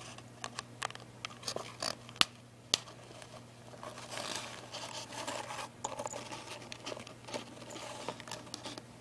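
Faint rustling and scratching with scattered sharp clicks, heaviest in the first three seconds, as a hermit crab's seashell is handled and moved over a fuzzy fabric surface.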